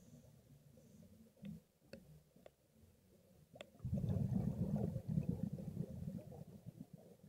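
Scuba diver's exhaled bubbles from a regulator bubbling past the camera underwater: a loud, low bubbling that starts about four seconds in and lasts some three seconds. A few faint clicks come before it.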